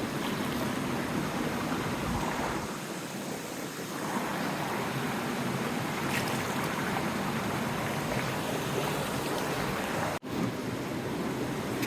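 Steady rush of a hill stream running over rocks, cutting out for an instant about ten seconds in.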